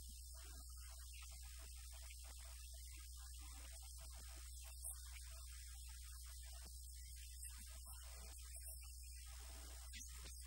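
Steady low electrical mains hum with faint hiss, at a level close to near silence; a faint tick about five seconds in.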